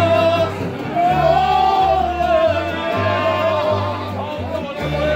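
Live mariachi band playing Latin American music with singing: plucked bass notes stepping along under a long, held sung line.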